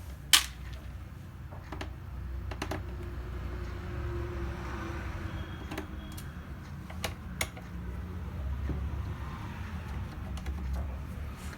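Small screwdriver taking the screws out of a laptop's plastic bottom panel: scattered light clicks and taps, one sharper click about half a second in, over a low steady hum.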